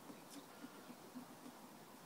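Faint, rhythmic rubbing of a hand polishing a stainless steel billy tin, about four strokes a second, stopping about one and a half seconds in.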